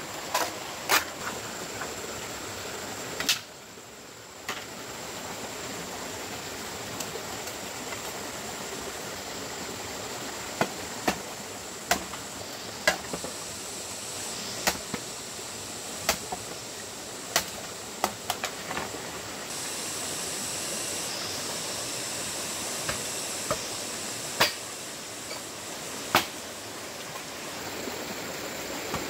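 Machete blade chopping green bamboo: a series of sharp, uneven knocks, one every second or so at times, over the steady rush of a shallow stream.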